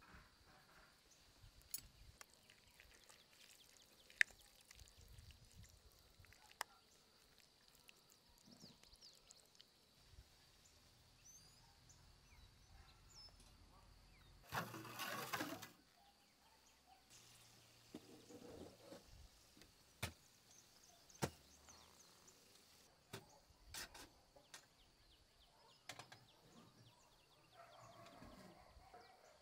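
Near silence: quiet outdoor ambience with faint scattered clicks and ticks of food handling, and one brief noisy rush lasting about a second around the middle.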